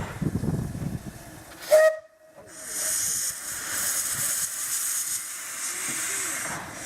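Miniature steam locomotive, a half-scale Darjeeling Himalayan Railway Class B replica: low rumbling, then a short whistle toot a little under two seconds in. After a brief drop-out, steam hisses steadily and loudly.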